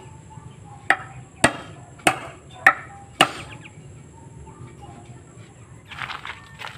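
Hammer blows on coco lumber, about two a second, five sharp strikes that stop a little over three seconds in.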